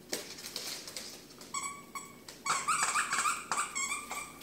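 A puppy whining and yipping in play: a string of short, high-pitched cries starting about two seconds in.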